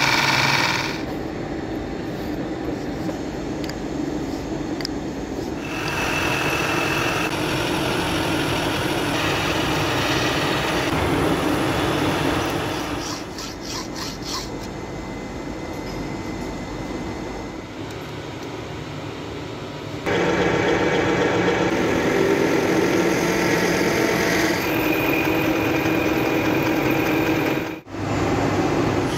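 Milling machine cutting aluminum at the start. Then a hand hacksaw saws an aluminum bar clamped in a bench vise, a rasping scrape. About two-thirds through, a machine tool runs loud and steady again and cuts off abruptly near the end.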